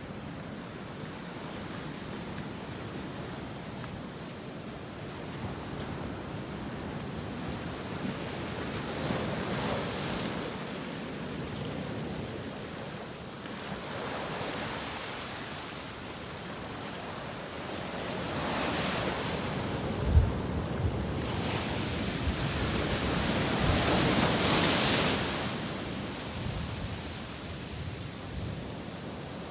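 Sea waves washing onto the shore, the surf swelling into louder surges three times, with wind on the microphone. A sharp thump about twenty seconds in stands out above the surf.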